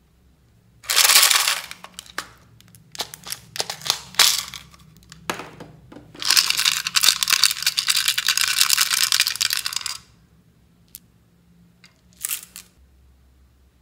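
Small hard beads rattling in a plastic pig-shaped container as it is shaken and tipped out into a hand: a loud rattle about a second in, scattered clicks, then a long dense rattle of about four seconds, and two short clicks near the end.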